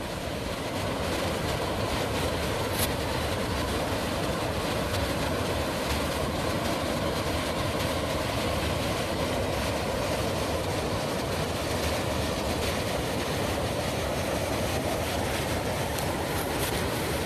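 River rapids: whitewater rushing with a steady, even sound.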